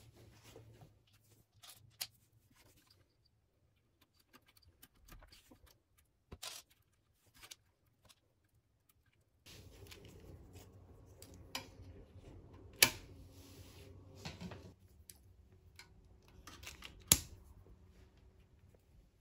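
Small handling noises as wiring connectors and loose hardware are worked under a scooter frame: scattered light clicks and rattles, with two sharp clicks, one about two-thirds through and one near the end. A faint steady hum comes in about halfway.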